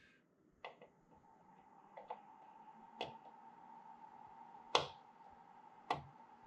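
Light clicks and taps of a metal tool touching contacts on an LED grow light board, as the pads of a suspect LED are shorted to test it, about six in all with the loudest about three-quarters of the way through. A faint steady whine runs underneath.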